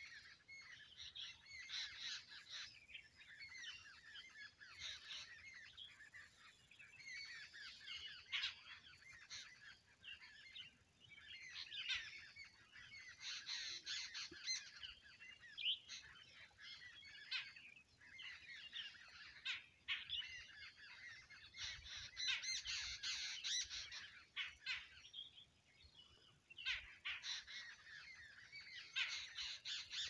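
A dense chorus of wild birds chirping and calling from a treetop, many short calls overlapping without pause and swelling louder in several stretches, especially in the second half.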